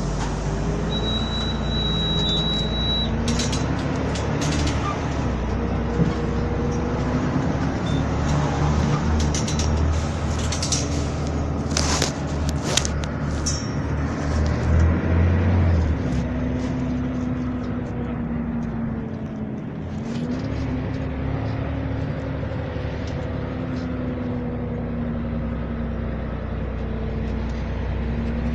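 Volvo B12M bus's six-cylinder diesel engine running, its pitch slowly rising and falling as the revs change. Sharp clicks and rattles come through in the first half.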